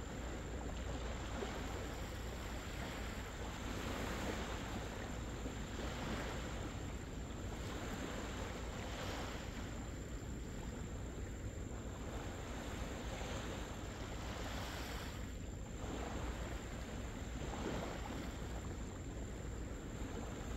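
Small waves washing onto a sandy beach, swelling and fading every few seconds, over a steady low rumble of wind on the microphone.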